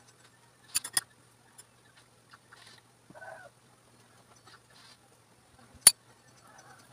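Sharp clinks of metal kitchen utensils: two close together about a second in and a loud single one near the end. A short, faint call-like sound comes about three seconds in.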